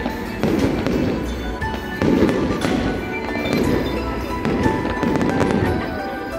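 Aerial fireworks going off in a string of bursts a second or two apart, with music playing along.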